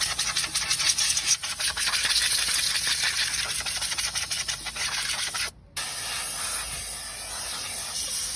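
Hands-on brake work: quick rubbing or scraping strokes over a hiss, then after a brief break a steadier hiss.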